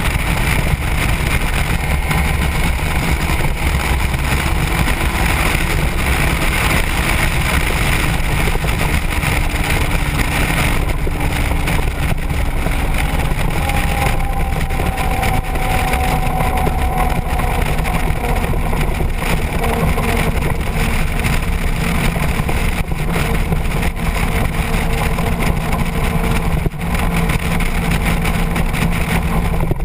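Motorcycle riding at speed: the engine running steadily under heavy wind rush on the microphone, its tone easing slightly now and then.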